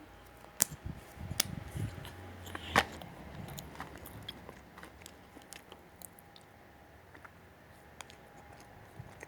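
A person biting and chewing a rosquinha, with a run of sharp crunchy bites between about half a second and three and a half seconds in, then only occasional faint clicks.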